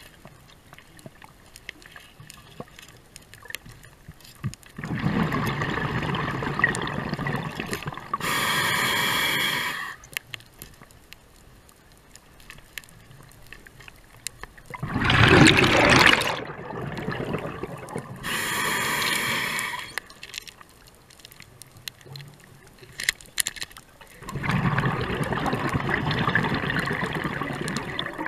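A scuba diver breathing through a regulator underwater: three breaths, each a long rush of exhaled bubbles followed by a shorter hissing inhalation, with quieter pauses in between.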